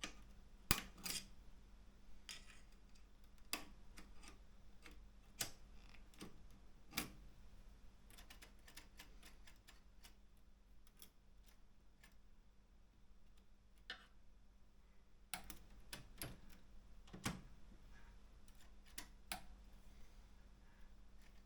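Keys of an Optima M14 manual typewriter striking the platen one at a time, with sharp separate clacks at a slow, uneven pace and a few short pauses, over a faint steady hum.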